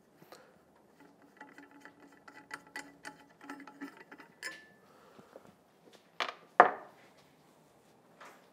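Metal parts of a disassembled Marzocchi MX Comp suspension fork being handled: a run of light metallic ticks and scraping with a faint ring, then two sharp knocks close together about six seconds in, the loudest sounds, and a single click near the end.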